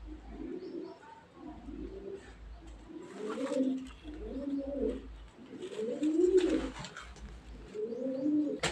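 A bird calling: a string of low notes that rise and fall, repeated over and over. A sharp click comes near the end.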